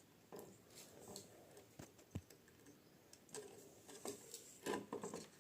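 Faint scattered clicks and small handling knocks of wiring up and connecting a bulb to a DC-to-AC converter.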